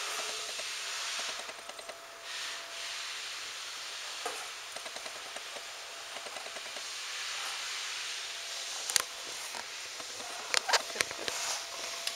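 Close rustling and handling noise, a steady hiss, with a few sharp clicks and knocks: one about nine seconds in and a cluster near the end as a hand reaches into the bedding.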